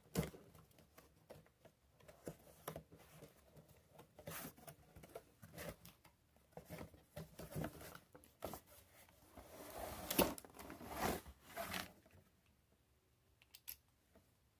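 Cardboard box being opened by hand and slid up off a fire extinguisher: scattered scrapes, rubs and light knocks of cardboard, busiest about ten to twelve seconds in, then quieter near the end.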